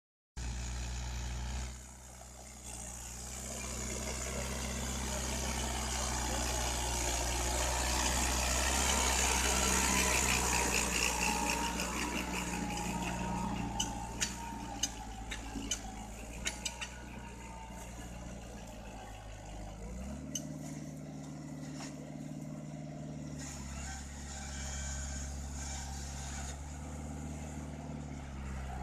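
Tractor engine running steadily, with a cluster of sharp clanks in the middle and a step up in engine pitch about twenty seconds in.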